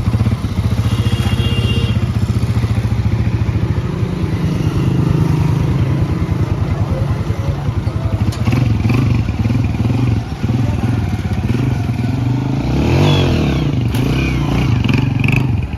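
Honda CG125 single-cylinder four-stroke engine running, freshly rebuilt with a new piston. Its speed rises and falls a few times in the second half.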